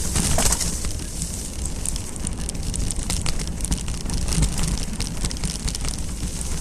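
Mountain bike riding along a dirt singletrack, heard from a camera on the bike or rider: a steady low wind rumble on the microphone under a dense run of clicks and crackles from the tyres rolling over loose dirt and debris.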